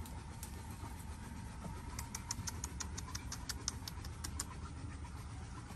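About a dozen short, high chirps in quick succession, starting about two seconds in and lasting about two and a half seconds, from a small animal, over a low steady rumble.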